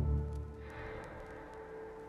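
Background music: low sustained notes that fade down within the first half second and then hold faintly.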